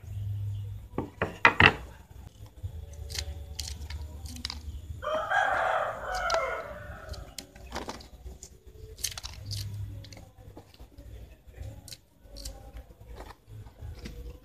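Sharp knocks on a wooden cutting board about a second and a half in, then a single bird call lasting about a second and a half, about five seconds in. Scattered small clicks and rustles of banana leaves being handled run throughout.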